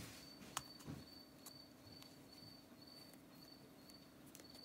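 Near silence, with faint insect chirping: a high, even chirp repeating about twice a second. A few faint clicks come from the small wooden lure body and its clear plastic lip being handled.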